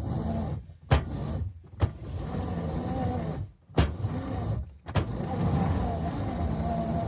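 Electric traction motors of a ride-on scale locomotive whining under heavy load as it shoves a Russell snowplow into deep snow, the whine wavering in pitch. It cuts out in several short breaks, each with a sharp click.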